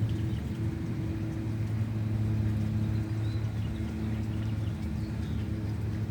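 Small engine of nearby yard equipment running steadily at one even pitch, a constant low hum.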